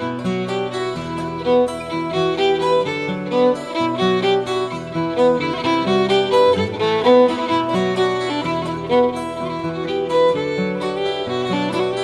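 Instrumental music with a steady beat and no singing: the accompaniment of a French children's song playing on after the last verse.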